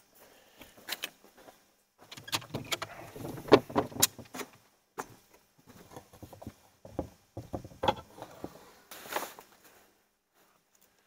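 Clicks, rattles and knocks of gear being handled at the back of a pickup truck as its camper-shell rear door is opened, in two busy bursts of clatter with a short pause between.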